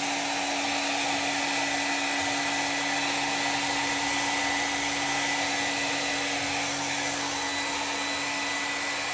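Heat gun blowing steadily with a constant hum, heating adhesive to soften it so a stuck piece can be pulled free.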